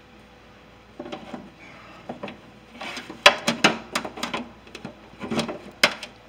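A string of irregular clicks and knocks, starting about a second in and loudest from about three seconds on: hands working inside a Ford E350 van's sheet-metal rear cargo door, handling the power door lock actuator and its wiring.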